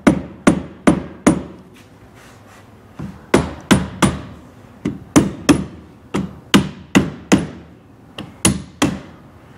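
Rubber mallet tapping a chrome windshield frame piece on a 1937 Cord down into place: about twenty sharp knocks in quick runs of three or four, with a pause of about two seconds after the first run.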